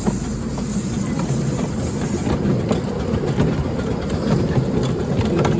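Miniature railway train running on its track: a steady rumble with scattered clicks, and a high hiss that drops away about two seconds in.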